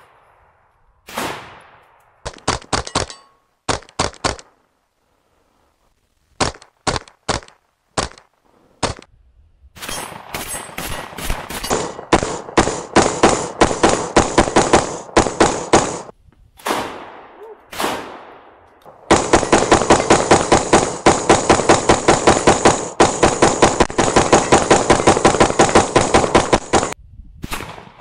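Gunfire from AR-15-style rifles. Single shots and short strings come in the first nine seconds, then long strings of rapid fire begin about ten seconds in, the longest lasting about eight seconds near the end.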